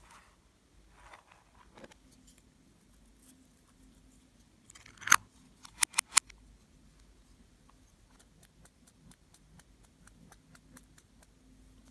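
Slime being squeezed and worked by hand with soft sticky crackles. About five seconds in comes one loud sharp pop, followed by three quick sharp clicks, then faint steady clicking.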